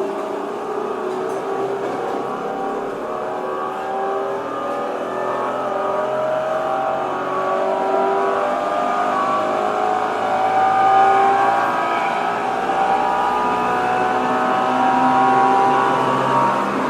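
Tokyo Metro 07 series train running, heard from inside the car: the VVVF inverter and traction motors whine in several stacked tones that rise slowly in pitch as the train accelerates, over steady wheel-on-rail rumble.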